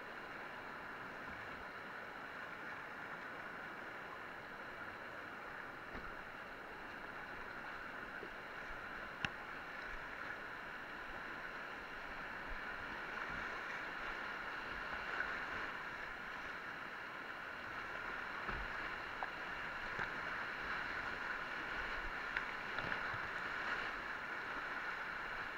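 Rushing whitewater of a river rapid heard from a kayak being paddled through it: a steady hiss of churning water that grows louder in the second half, with a few scattered sharp clicks and knocks.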